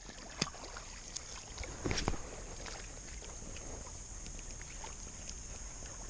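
Creek-side ambience: a steady high-pitched insect drone, with faint water movement and scattered small clicks and knocks, the sharpest about half a second and two seconds in.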